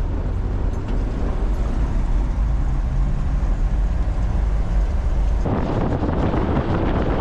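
Chevrolet K5 Blazer driving on a washboard gravel road: a steady low rumble of engine and road noise, joined about five and a half seconds in by a louder rushing noise.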